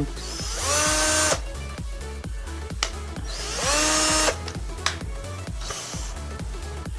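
Cordless drill motor, running on a converted 14.4 V lithium-ion pack, spinning up twice in short bursts, each a whine that rises and then holds. Background music with a steady beat runs underneath.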